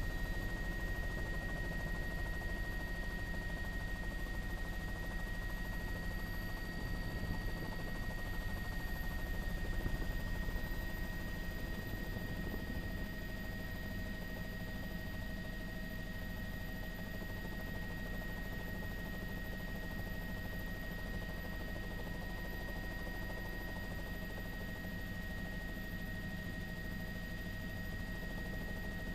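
Helicopter engine and rotor noise heard from inside the cabin: a steady drone with a fast chopping beat and a constant high whine, easing slightly about ten seconds in.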